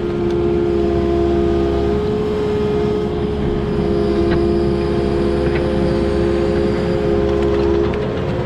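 Diesel engine of heavy earthmoving equipment running steadily, with a steady droning whine over a low rumble.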